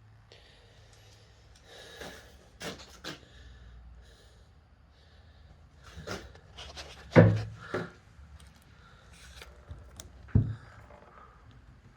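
Handling noises as the hydraulic press's power unit and its packaging are looked over by hand: light rubbing and rustling with scattered knocks. The loudest knock comes about seven seconds in, and another sharp one comes about ten seconds in.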